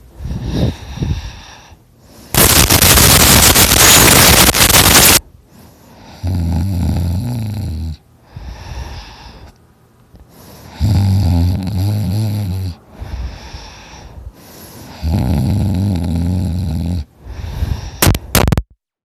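A man snoring heavily in his sleep: three low, buzzing snores about two seconds long and four to five seconds apart, after a long, very loud hissing rush of breath. A couple of sharp clicks near the end, then the sound cuts off.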